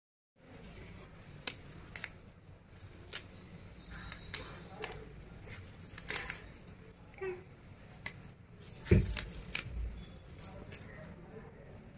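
Fresh amaranth leaves and stems being handled and plucked by hand, giving a string of sharp snaps and rustles at irregular intervals, with a duller thump about nine seconds in.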